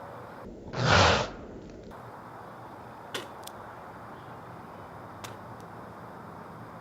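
A short whoosh sound effect, swelling and falling away within about half a second, about a second in. Two faint clicks follow later.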